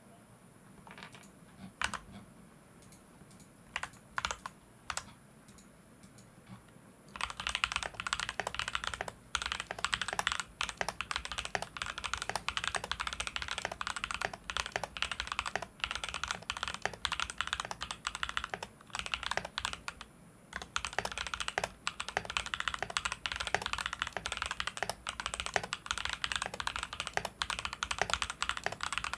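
Mechanical keyboard with factory-lubed Leobog Greywood v3 linear switches being typed on: a few scattered keystrokes, then fast continuous typing from about seven seconds in.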